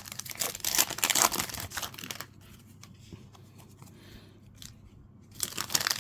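Trading-card packaging being torn open and crinkled, with a burst of tearing and crackling for the first couple of seconds, a quieter pause, then more crinkling near the end.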